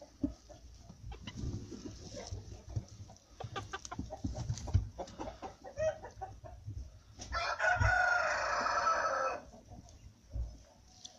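A rooster crows once, a loud call of about two seconds coming about seven seconds in, after a few seconds of soft clucking and scuffling.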